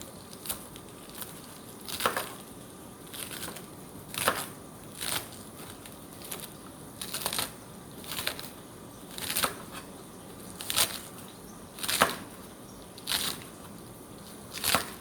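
Food frying in hot oil in a pan, giving short sharp crackling pops at irregular intervals, roughly one a second.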